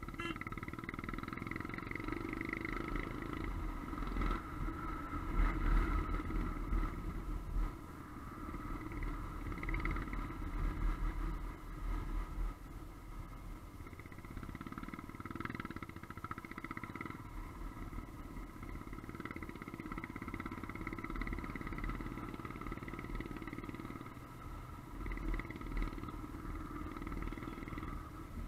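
Royal Enfield Himalayan's 411 cc single-cylinder engine running steadily while riding, heard from the bike itself, over an uneven low rumble.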